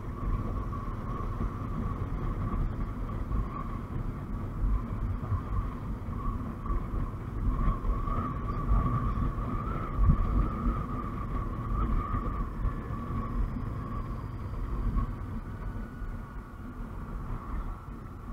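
Motorcycle riding at a steady road speed: the engine runs under a low rumble of wind on the microphone, with a thin steady whine above it.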